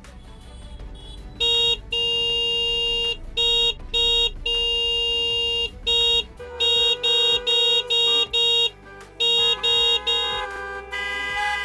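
Motor scooter's electric horn honked over and over, long blasts mixed with rapid short toots, over the low running of the scooter's engine.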